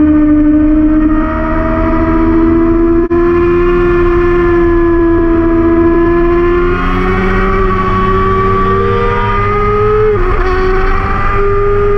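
Sport motorcycle engine running at high revs, its pitch climbing slowly as it pulls through a long corner onto a straight, with a brief dip about ten seconds in. Wind noise rushes underneath.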